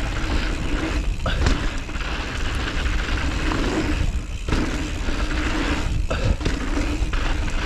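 Giant Trance mountain bike rolling fast down a dirt trail: tyre and ride noise under heavy wind rumble on the action camera's microphone, with several sharp knocks as the bike rattles over bumps.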